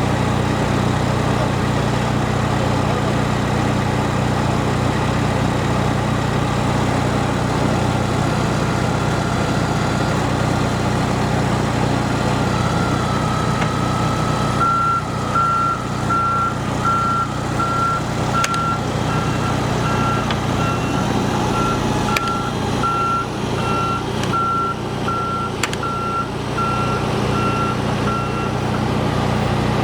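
Heavy construction equipment's engine running steadily. About halfway through, a reversing alarm starts beeping at a regular pace, a little more than once a second, until near the end, with a few sharp knocks in between.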